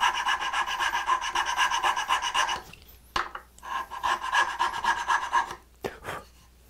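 Hand file rasping back and forth in quick strokes on a wooden finger-joint pin, in two runs with a short break about two and a half seconds in, followed by a few knocks near the end. The file is trimming a pin face because the joint is a hair too tight.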